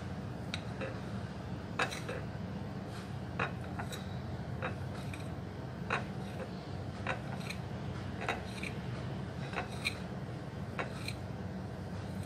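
Kitchen knife clicking against a ceramic plate while a soft chocolate cake bar is cut into small pieces: sharp clicks, often in pairs, about one a second.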